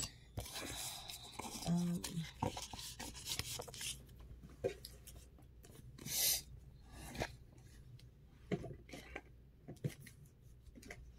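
Tarot cards being shuffled and handled: soft rubbing and rustling of the card stock with scattered light clicks and taps.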